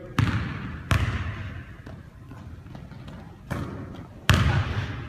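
A basketball hitting the hardwood gym floor, four sharp, echoing thuds at uneven intervals, two in the first second and two more near the end.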